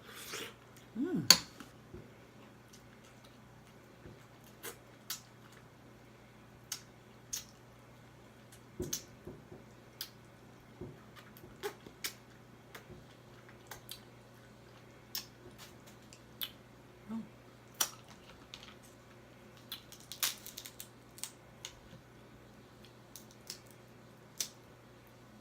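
Crab legs being cracked and picked apart while eating: irregular sharp snaps and clicks of shell breaking, with a short voice sound about a second in during the loudest cluster of cracks.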